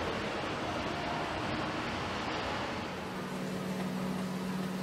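Factory floor noise: a steady, even rushing hiss. About three seconds in, a steady low machine hum joins it.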